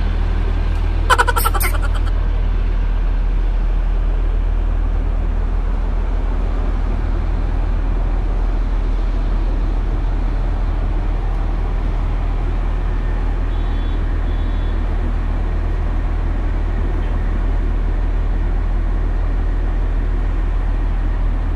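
City bus idling at a stop, a steady low engine hum. A short run of high beeps comes about a second in, and two faint beeps come around the middle.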